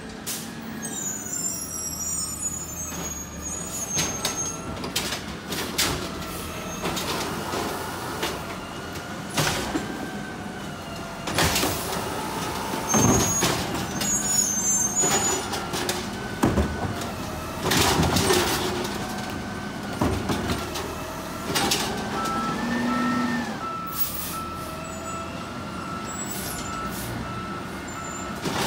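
Automated side-loader garbage truck: its diesel engine runs and changes pitch as the truck creeps up to the curb, with several sharp air-brake hisses. In the last few seconds a regular beeping alarm sounds.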